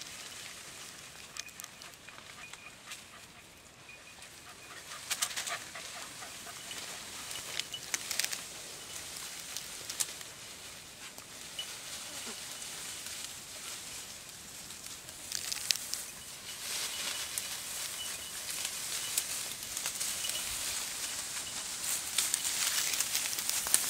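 Dry grass and scrub rustling and crackling, with scattered sharp twig snaps, as someone moves through the undergrowth.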